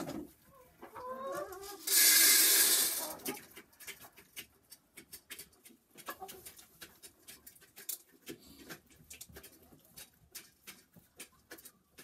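Domestic hens clucking softly in a henhouse, with a loud rush of noise lasting about a second around two seconds in, then many small ticks and taps among the calls.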